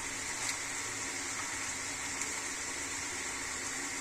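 Chicken and spices sizzling in a pan: a steady hiss with a couple of faint clicks.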